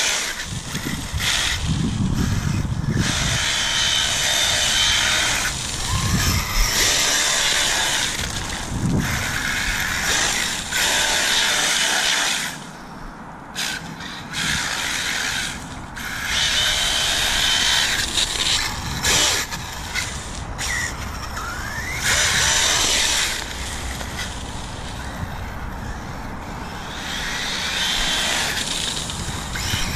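Arrma Kraton EXB 1/8-scale RC truggy's brushless motor and drivetrain whining in repeated bursts of acceleration, with short lulls between runs.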